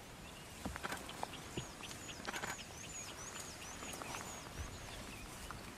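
A bird calling outdoors in a quick series of short, arched high notes, about three a second, over faint background hiss. A few soft knocks come in before and during the calls.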